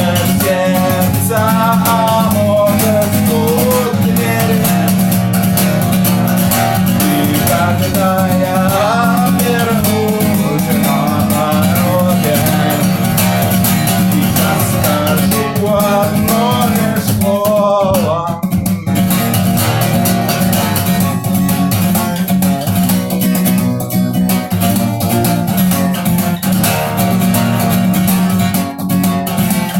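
Guitar playing an instrumental passage of a song: steady chords, with a wavering melody line above them at times.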